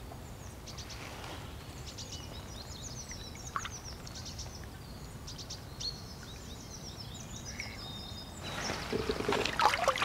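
Birds singing over a faint outdoor hush, then from about eight and a half seconds in, loud water splashing and pouring as a carp sling is lifted out of the lake and the released common carp swims off.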